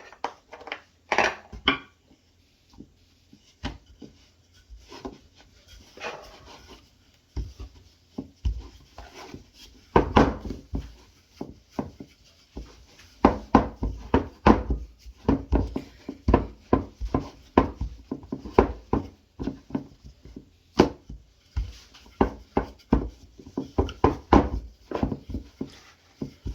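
Irregular knocks and clatter of kitchen utensils and dough cutters against a wooden board, sparse at first and coming thick and fast from about halfway in.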